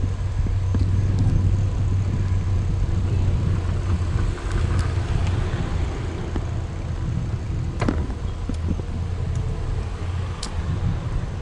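Steady low rumble of a car rolling slowly, with a couple of sharp clicks near the end.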